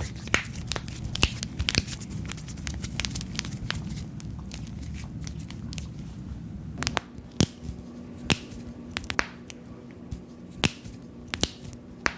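Finger knuckles being cracked: a dozen or so sharp pops, one joint at a time, at irregular intervals. A low background hum runs underneath and drops away about seven seconds in.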